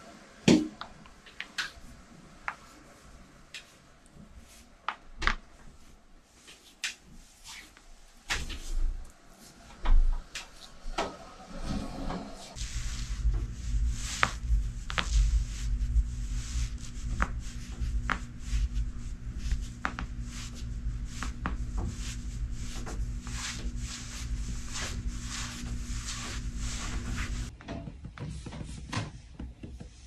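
Back cracking under a masseuse's feet: irregular sharp pops and clicks from the spine and rib joints as she stands and presses on the back, the loudest near the start and about ten seconds in. From about twelve seconds in a steady low hum sits beneath the pops, then stops a few seconds before the end.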